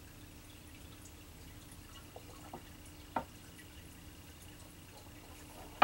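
Faint room tone with a steady low hum and a couple of small clicks, then, a little past three seconds in, one sharp knock of a small shot glass being set down on a wooden tabletop. A louder thump comes right at the end.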